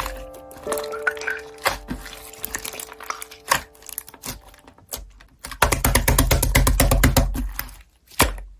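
Slime being squished and pressed by hand, making sharp crackling and popping clicks over soft background music with a few held notes. The clicks come thick and fast for about two seconds in the second half.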